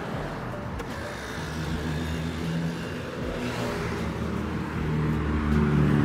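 Street traffic with a car going by, its engine and tyre noise growing louder toward the end.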